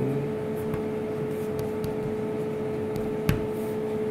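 Steady electrical machine hum with a constant tone, with a few light clicks and one sharper tap about three seconds in.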